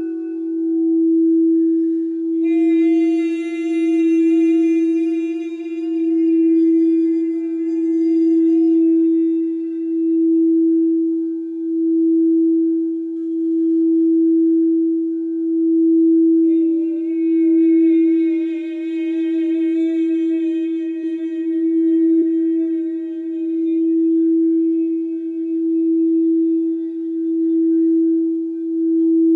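Frosted quartz crystal singing bowl sung by a wand circling its rim: one steady, sustained tone that swells and eases about every two seconds as the wand goes round. Twice, a few seconds in and again past the middle, a higher wavering vocal tone is sung over it for several seconds.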